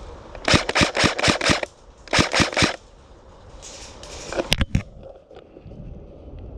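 Airsoft rifle firing two quick bursts of shots, about seven and then about four, with two more sharp cracks a couple of seconds later.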